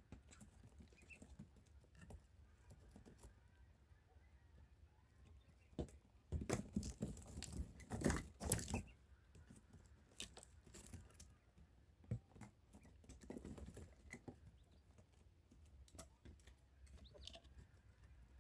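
Quail moving about in their enclosure: scattered light taps and rustles, with a louder spell of scuffling and scratching for a few seconds in the middle.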